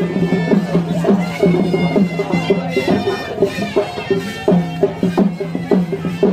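Traditional wedding music: a reed wind instrument playing a melody over a steady drone, with quick drum strokes.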